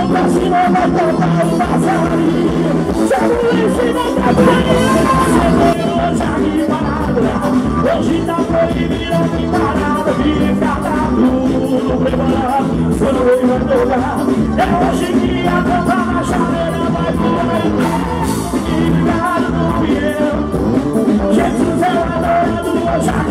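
Live gospel band playing amplified music through a PA, with a male lead singer over keytar, accordion, guitar and drums.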